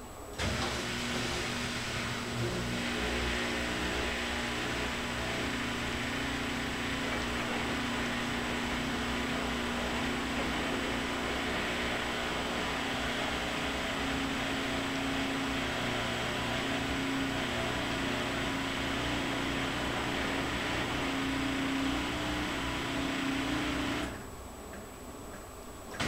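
Front-loading washing machine in its wash cycle: the drum motor starts abruptly about half a second in and turns the drum with a steady hum over the churning of wet laundry and water. The motor stops about two seconds before the end and starts again at the very end, the pause between tumbling turns of the wash.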